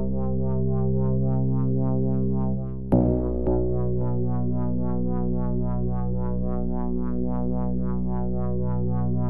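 Synthesizer music: a sustained low chord under a fast, evenly pulsing pattern of about four to five pulses a second. A new chord strikes about three seconds in.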